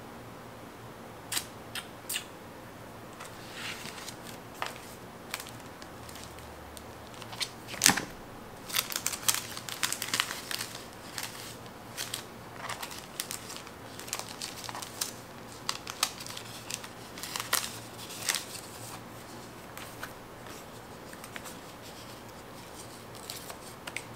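Paper and sticker sheets being handled: irregular crinkling, rustling and sharp clicks, busiest in the middle.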